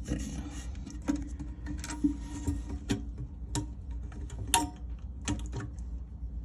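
Irregular light clicks and taps of a toilet flapper chain and its clip against the flush lever and plastic tank fittings, as the new flapper's chain is hooked on and adjusted for slack.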